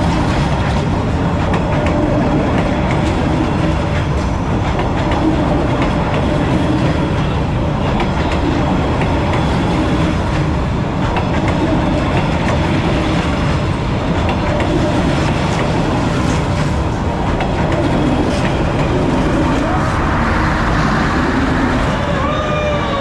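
Train passing at close range on a street-running line, loud and steady throughout.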